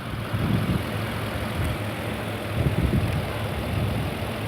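Car engine idling steadily with both battery terminals disconnected, kept running by the alternator alone. A little low rumbling swells up about halfway through.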